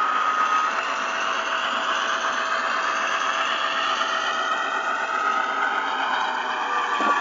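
Model train running along the track, heard from a camera riding on it: a steady motor whine over wheel-on-rail noise, the whine drifting lower near the end, with one short click about seven seconds in.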